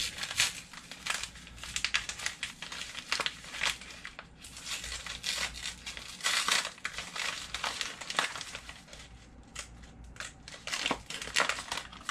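A bag of sugar crinkling and rustling in the hands as it is unrolled and opened, in a run of irregular crackles.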